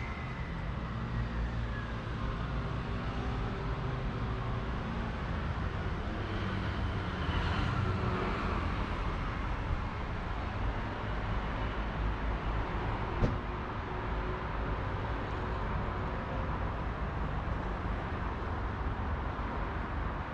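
City street traffic: a steady low rumble of cars, with one vehicle passing louder about a third of the way in and a single sharp click a little past halfway.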